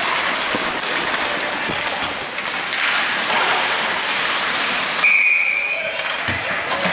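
A referee's whistle blows once, one steady blast of about a second, about five seconds in, over the steady hiss of ice-rink noise.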